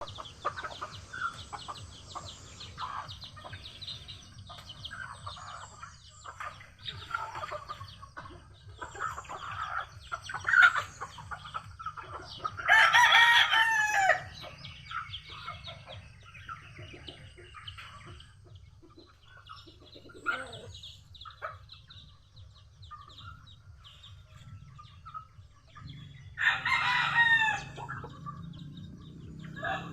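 Chickens clucking, with a rooster crowing twice: once about thirteen seconds in and again near the end.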